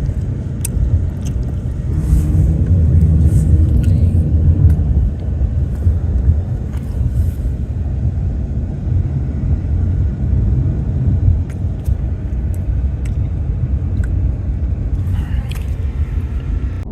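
A car driving: a steady low rumble of engine and road noise, with a few light clicks and brief hisses over it.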